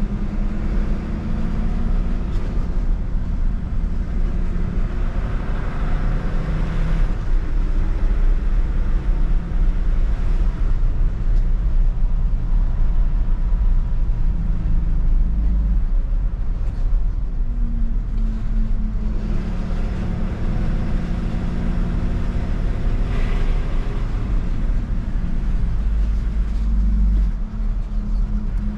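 Tow truck's engine running while it drives along a winding road, its pitch rising and falling as the revs change.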